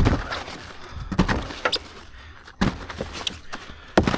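Irregular hollow knocks and clatter of fishing gear being handled in a boat: a sharp knock at the start, others about a second and two and a half seconds in, and another near the end.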